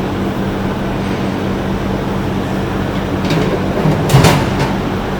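Truck battery box being set back in place over the batteries: a knock about three seconds in, then a short clatter of louder knocks a second later, over a loud, steady low machine hum.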